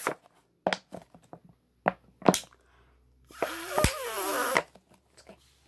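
Empty plastic water bottle being handled, its thin plastic giving a few sharp crackling clicks. About three and a half seconds in, a hissing rush with a wavering squeak lasts about a second, with a sharp click in the middle of it.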